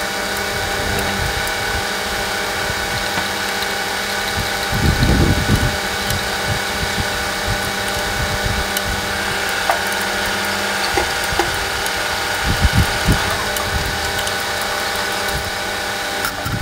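Hand tools clicking and knocking on the metal air-line fittings of a Mercedes-Benz Actros truck's air compressor as they are tightened, with a few dull thumps about five seconds in and again near thirteen seconds. A steady mechanical hum with several constant tones runs underneath.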